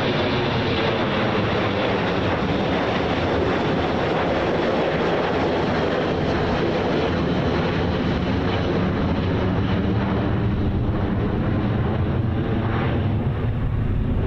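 Boeing E-3D Sentry's four CFM56 turbofan engines, loud and steady, as the jet passes overhead and heads away. There is a deep rumble under the jet hiss, and the hiss eases slightly in the last few seconds.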